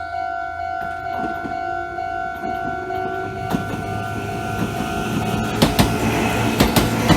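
Japanese level-crossing alarm bell ringing in quick repeating dings while a Meitetsu Bisai Line train approaches and passes. The train's noise builds from about a second in, and its wheels clack over the rail joints, louder and more often in the last couple of seconds.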